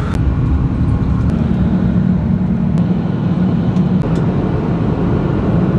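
Steady jet airliner cabin noise in flight: a low rumble of engines and airflow with a steady hum.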